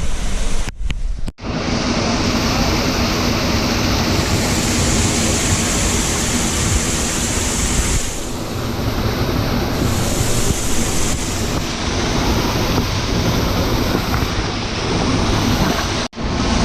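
Waterfall pouring into its pool, a loud, steady rush of falling water. It breaks off for an instant about a second in and again near the end.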